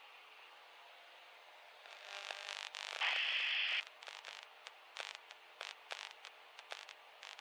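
Static on a light aircraft's radio and intercom feed. A steady hiss builds about two seconds in into a loud burst of static lasting under a second, followed by a string of sharp crackles.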